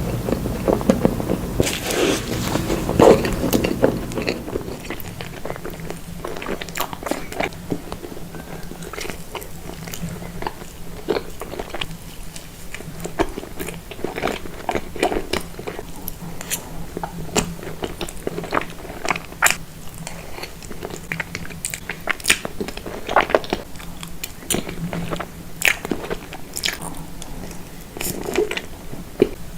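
Close-miked eating of profiteroles: biting and chewing with many short crisp crackles and wet mouth clicks, louder in the first few seconds.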